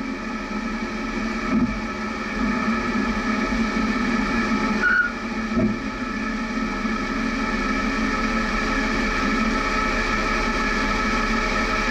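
Jeep engine running steadily at low revs as the Jeep creeps over a rough dirt trail at walking pace, a constant drone that grows a little louder about two seconds in.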